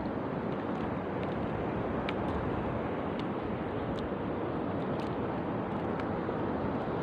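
Steady rush of wind and sea water around a small boat on open water, with a few faint clicks.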